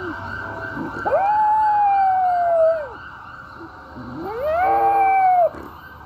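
A dog howls twice, about a second in and again near four seconds. Each howl rises, holds and slides down at the end. An ambulance siren wails steadily behind it.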